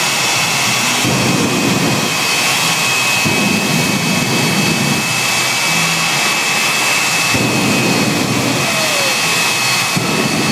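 Jet engines of jet-powered show vehicles built as steam locomotives, running loud with a steady high whine. Rumbling surges come in every two to three seconds as the engines are lit up, throwing out smoke and flame.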